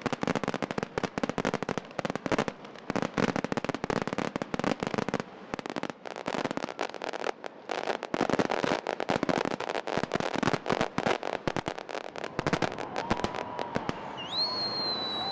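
Fireworks crackling in a dense, rapid barrage of cracks and pops, thinning out near the end, when a steady high whistle starts.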